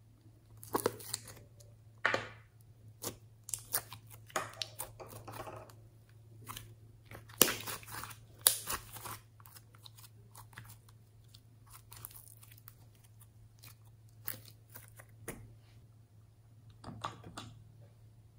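Glitter slime being opened and handled: sharp clicks of a plastic capsule container and short sticky sounds as the slime is pulled out and stretched, coming in irregular bursts with the loudest clicks about seven and eight seconds in. A faint steady hum runs underneath.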